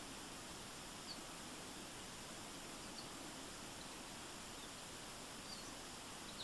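Steady rush of a forest stream, with a few short, faint high chirps from a bird scattered through it.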